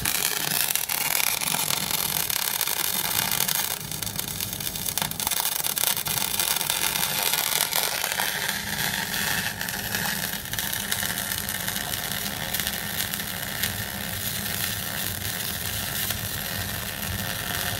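MIG welding arc crackling steadily as a bead is laid, with a steady low hum underneath. It is a test weld from a three-phase tap-switch MIG welder whose contactor has been replaced with triacs.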